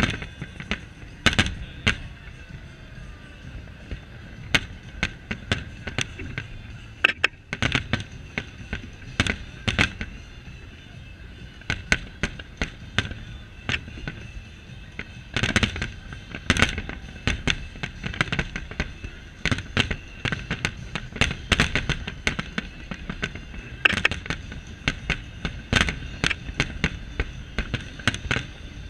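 Fireworks display: aerial shells bursting in a rapid, irregular series of sharp bangs, thickest about halfway through and again near the end.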